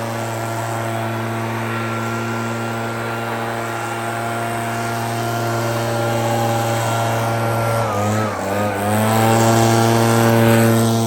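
Echo PB-9010 backpack blower's two-stroke engine running steadily at high throttle while blowing snow; about eight seconds in the throttle drops briefly and comes back up, a little louder near the end.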